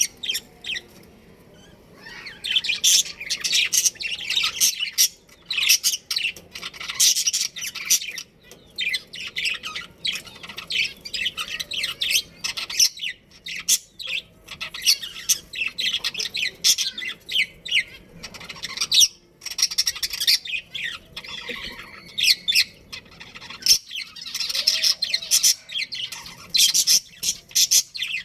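Budgerigars chirping and chattering: rapid, overlapping high chirps and squawks, starting about two seconds in after a brief lull.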